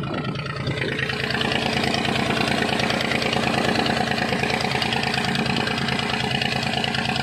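A boat engine running steadily: a low, even hum under a broad rushing noise that grows a little louder about a second in.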